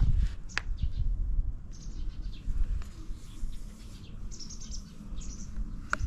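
Small birds chirping in short, scattered calls over an uneven low rumble.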